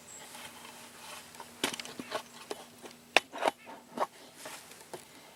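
A run of irregular sharp clicks and knocks, about a dozen over three seconds, the loudest near the middle.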